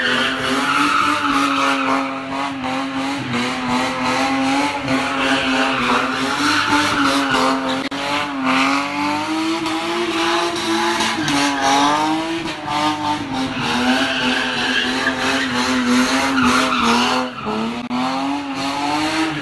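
Toyota 2JZ 3.0-litre straight-six in a drift-built Datsun sedan held at high revs while drifting, its pitch rising and falling with the throttle, with tyres squealing and skidding on the tarmac.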